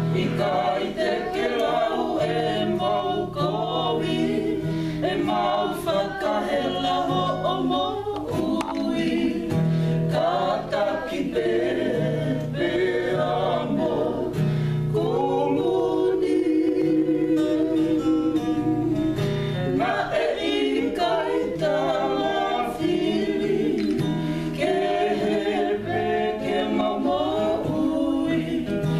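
A small mixed group of men's, women's and children's voices singing a Tongan song in harmony, accompanied by a strummed acoustic guitar and ukulele.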